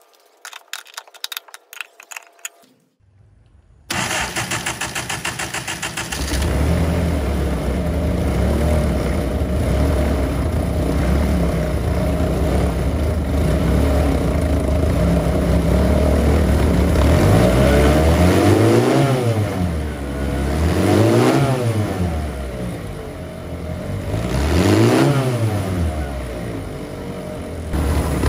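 A few light metallic clinks, then a supercharged salvaged car engine cranks on its starter for about two seconds, catches and runs. Near the end it is revved up and back down three times.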